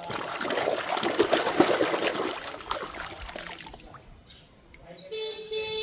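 Water pouring and splashing for about three and a half seconds, then dying away. Near the end a steady, horn-like pitched tone starts and holds.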